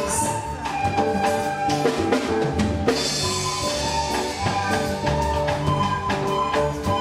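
Upbeat instrumental music with a steady drum-kit beat of bass drum and snare under sustained melodic instruments, with a bright crash about three seconds in.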